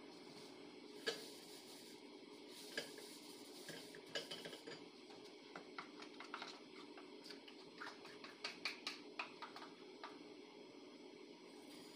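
Faint clinks and taps of kitchen utensils and dishes being handled, scattered at first and coming in a quick run over the second half, over a steady low hum.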